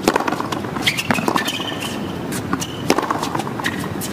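Tennis rally on a hard court: the sharp pops of rackets striking the ball, with short high squeaks of tennis shoes on the court surface between shots.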